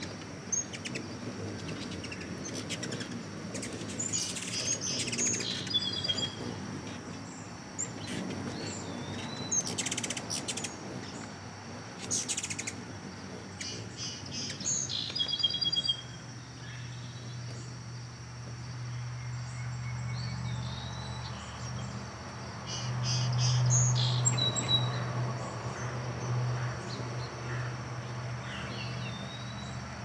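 Hummingbirds, likely ruby-throated, giving high, sharp chip calls and short squeaky chatters in scattered bouts. A low steady hum comes in about halfway through and is loudest a little later.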